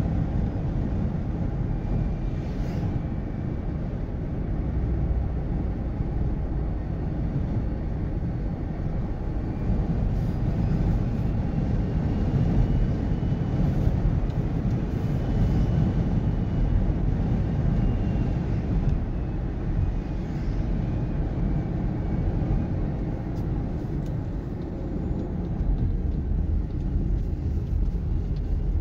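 Steady road noise of a vehicle driving along a highway: a continuous low rumble of engine and tyres, with a faint whine that drifts slightly in pitch.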